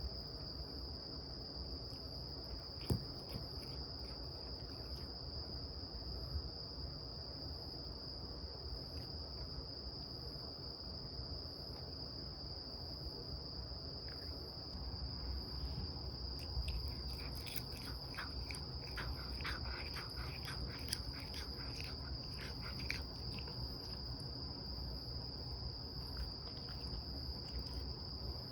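A cat chewing cat grass, a run of small crisp clicks about halfway through, over a steady high-pitched whine.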